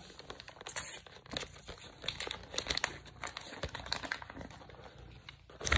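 Irregular crinkling and rustling with many small crackling clicks.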